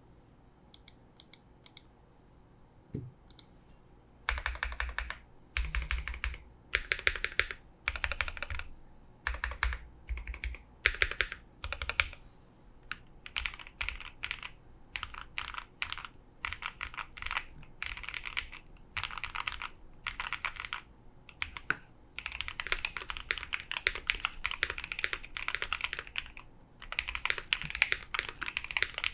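Custom Bakeneko65 keyboard with lubed KTT Kang White linear switches, an FR4 plate, tape mod and PBT keycaps being typed on. A few single keystrokes come first, then bursts of fast typing from about four seconds in, becoming near-continuous typing near the end.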